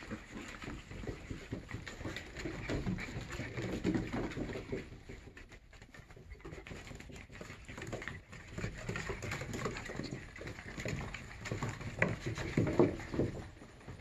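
German Shepherd–Boxer mix puppies, four and a half weeks old, play-fighting: small growls and grunts mixed with paws pattering and scrabbling on a wooden deck. The scuffling comes in irregular bursts, loudest near the end.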